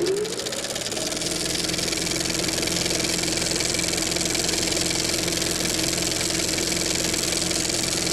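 An engine running at a steady speed, after speeding up over the first second.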